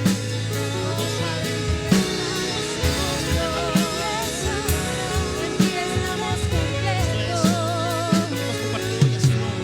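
Worship band music: a slow song carried by drum kit and bass, with a melody line that wavers with vibrato, between sung phrases.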